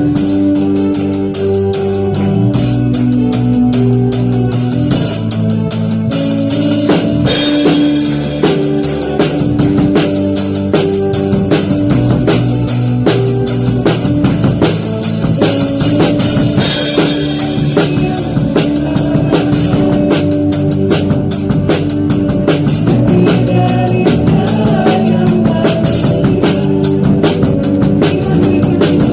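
Worship band playing: an acoustic drum kit keeps a steady beat with cymbals under keyboard, electric guitar and bass, with cymbal crashes at about seven seconds and again at about seventeen seconds.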